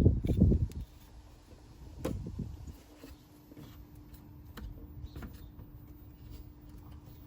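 Hands and tools working an accessory belt onto its pulleys while the tensioner pulley is released: heavy handling rumble in the first second, a single clunk about two seconds in, then scattered faint clicks over a faint steady hum.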